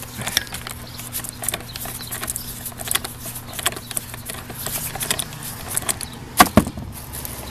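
Screwdriver clicking and scraping on a small screw on a fog light's mounting bracket, with scattered light handling clicks and two louder knocks about six and a half seconds in. A steady low hum runs underneath.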